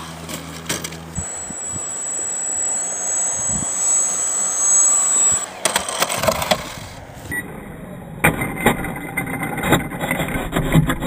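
A small electric RC plane's brushless motor and propeller run with a steady high-pitched whine as it flies low. About five and a half seconds in comes a short clatter of knocks, then scattered clicks and knocks.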